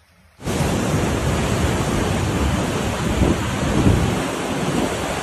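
Muddy flash-flood water rushing in a fast torrent: a loud, steady roar of water that cuts in abruptly about half a second in.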